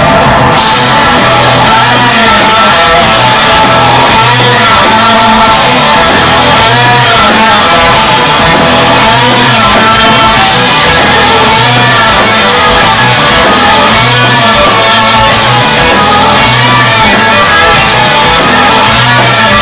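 Live rock band playing loud and heavy: distorted electric guitars, bass guitar and drums at full volume.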